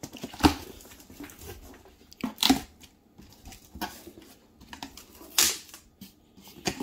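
Packing tape being ripped off a cardboard box and the box flaps pulled open, with three loud rips and scrapes about two seconds apart and smaller rustles and clicks of cardboard and styrofoam between.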